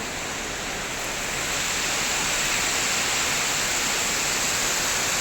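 Waterfall: a steady rush of falling water that grows a little louder about a second and a half in.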